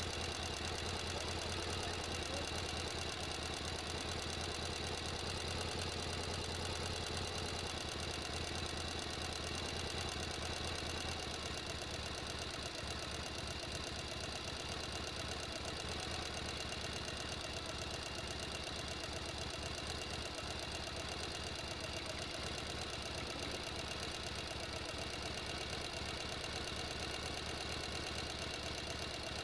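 Sewing machine running steadily at speed, a fast, even mechanical clatter over a low hum. The low hum eases slightly about eleven seconds in.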